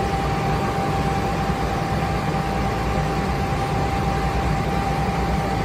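Passenger ferry's engine running steadily, heard on board as a low rumble with a constant thin whine over it.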